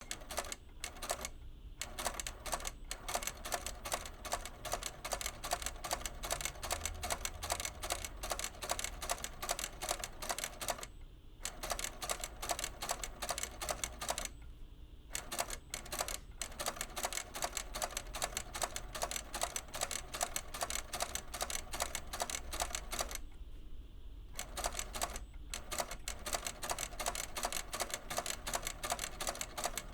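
Rapid mechanical clicking, many clicks a second, stopping briefly a few times and for about a second and a half around the middle.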